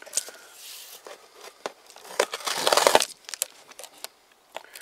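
Knife blade slitting clear packing tape along a cardboard box seam: scattered scrapes and crackles of tape and cardboard, with a louder rustle about halfway through.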